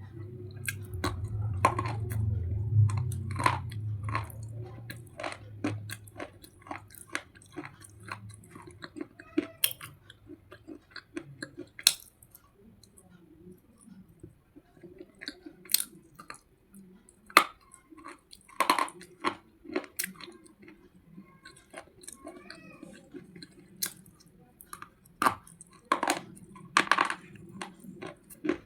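Slate pencil being chewed close to the microphone: a long run of sharp, dry crunches at irregular intervals, with a low rumble in the first few seconds.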